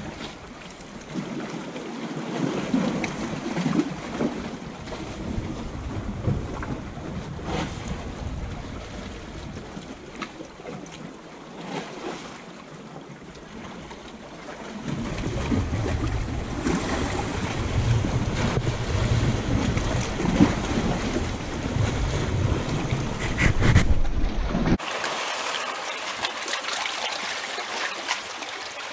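Small sea waves washing and lapping among shoreline rocks and shallow water, with wind buffeting the microphone as a heavy rumble through the middle stretch. Near the end it changes abruptly to a closer, thinner sound of water trickling and splashing over wet rocks.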